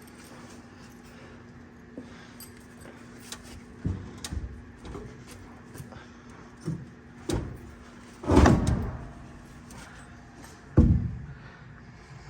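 Heavy metal clunks and scrapes of a pry bar working a seized torsilastic suspension part through the bus frame, the part knocking against the frame pieces it is hitting. Six or so irregular knocks; the loudest is a longer clunk a little past eight seconds, with a sharp knock near eleven seconds.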